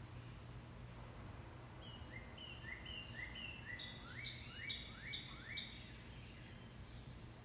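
A songbird singing a rapid run of repeated two-note phrases, about eight in a row, starting about two seconds in and stopping just before six seconds, over a faint steady low hum.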